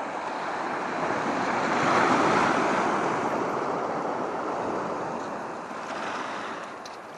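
Small sea waves washing in over a pebble beach, the surge swelling to its loudest about two seconds in and then slowly easing off.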